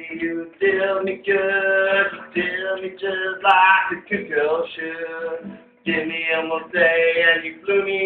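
Acoustic guitar strummed while a man sings, in phrases broken by short pauses.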